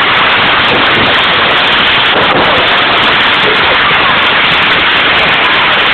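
Ground firework fountain spraying sparks: a loud, steady hissing crackle.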